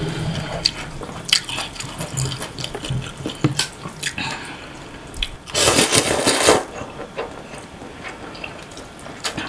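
Close-miked mukbang eating of naengmyeon, cold buckwheat noodles in broth: chopsticks click against the stainless-steel bowl and broth drips and splashes as noodles are lifted out. A loud slurp of about a second comes a little past the middle.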